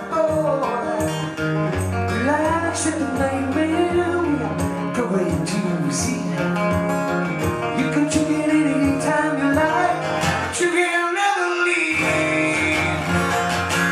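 A man singing with his own strummed acoustic guitar in a live solo performance. Near the end the guitar's low notes drop out for about a second while the voice holds a note.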